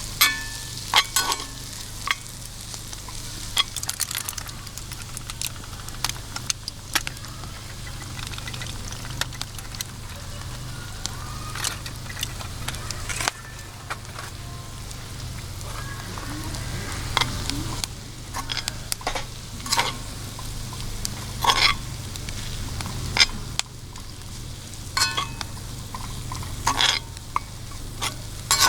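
Food frying in a pan, a steady sizzle with sharp pops and clicks here and there.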